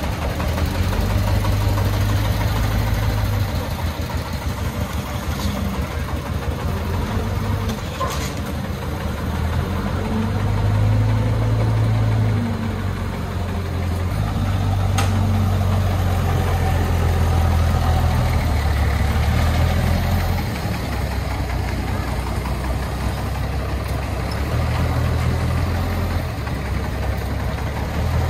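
Diesel engines running: the single-cylinder D24 diesel of a three-wheeled công nông truck and a forklift's engine, a low throb that swells and eases several times.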